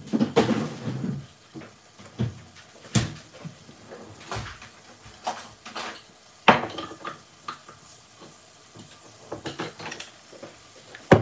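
Scattered knocks, clicks and clatter of kitchen cupboard doors and dishes being handled while a beer is fetched, with a louder knock about six and a half seconds in and another near the end.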